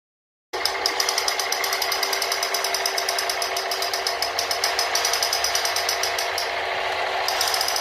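Toy machine gun firing continuously: a fast, even mechanical rattle with a steady buzzing tone, starting suddenly about half a second in.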